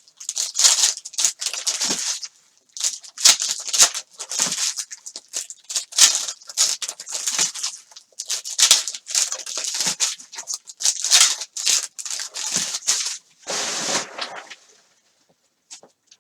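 Trading cards and foil card packs being handled quickly: a rapid run of rustling, sliding and crinkling strokes, with one longer, fuller rustle near the end before it stops about a second before the close.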